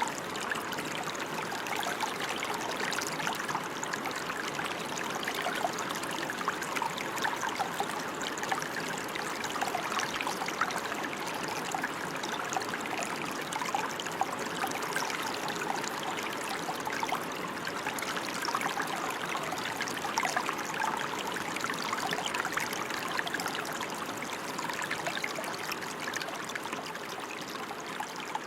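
Steady rain falling, a dense even hiss made up of many small drop sounds.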